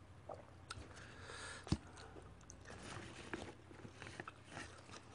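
A person chewing a mouthful of food close to the microphone, with soft mouth sounds and scattered small clicks; one sharper click comes a little under two seconds in.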